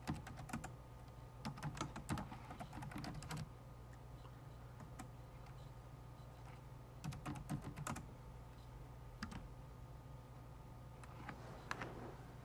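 Computer keyboard typing: several short runs of keystrokes separated by pauses, over a faint steady electrical hum.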